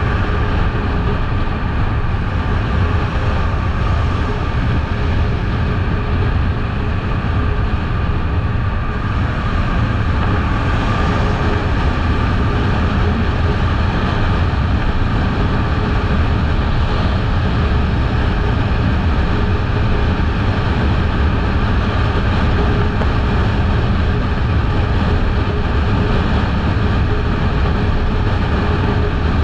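Kawasaki Eliminator 500 motorcycle's parallel-twin engine running at a steady cruise, mixed with a heavy, even wind rush on the camera microphone. The sound holds steady, with no gear changes or revving.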